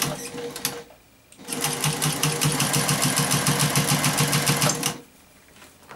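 Domestic electric sewing machine running at a steady speed, stitching a quick, even run for about three and a half seconds, then stopping sharply about a second before the end.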